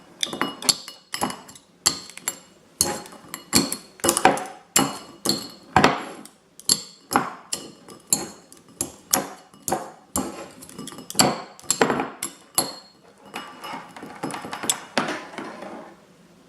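A plastic fork jabbing repeatedly at an HDMI cable in a bowl: sharp, irregular clacks, about two or three a second, turning into softer, quicker rattling for a few seconds near the end.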